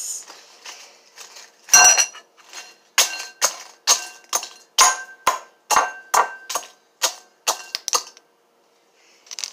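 Wire potato masher smashing Doritos tortilla chips in a glass mixing bowl: a quick run of sharp crunching strikes, about three a second, with the glass bowl ringing faintly after each hit. The pounding stops about eight seconds in.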